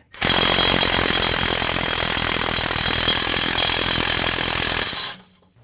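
Cordless impact driver spinning a nylock nut up a long carriage bolt with a deep-well socket. It runs steadily for about five seconds and stops just before the end.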